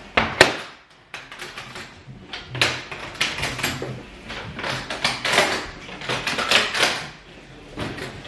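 Clattering, scraping and knocking as a small portable folding table is handled and set up, with a sharp knock just after the start and a busy run of scrapes and knocks through the middle.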